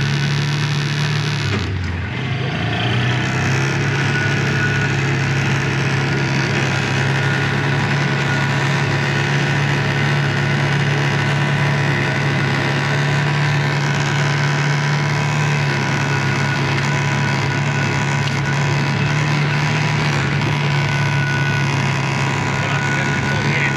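Engine of a side-by-side utility vehicle running steadily while it drives along a grassy track. The engine note drops briefly about two seconds in, then holds steady.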